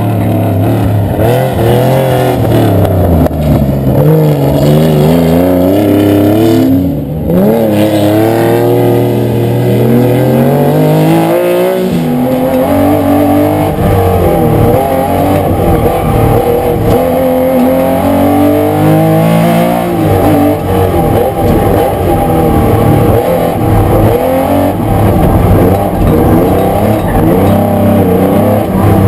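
Porsche 911 RSR Group 4's air-cooled flat-six revving hard and shifting through the gears, its pitch climbing and dropping again and again. From about twelve seconds in it is heard from inside the car's cabin.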